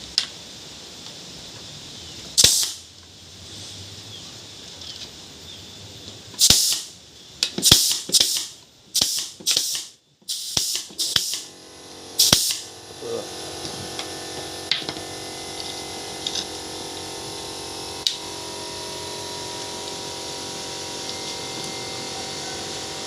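A pneumatic nail gun firing about ten times, each shot a sharp snap with a short hiss of air, most of them in quick succession in the middle. From about halfway a steady machine hum with several tones sets in and runs on.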